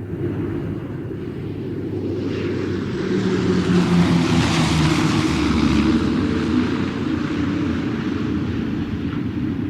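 Airplane in flight: a steady low engine drone that swells to its loudest about four to five seconds in, with a brighter rushing sound on top, then eases a little.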